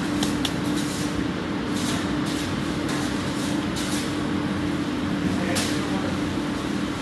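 Steady hum of kitchen machinery with a held low tone, overlaid by a few soft, brief pats and rustles as dough balls are rounded by gloved hands on a steel table.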